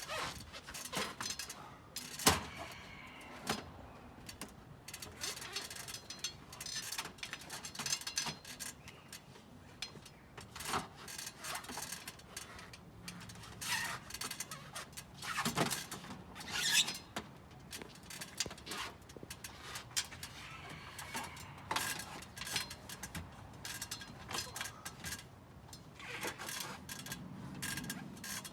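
Irregular knocks, bumps and scraping as a heavy rooftop RV air conditioner unit is handled and hauled up a ladder.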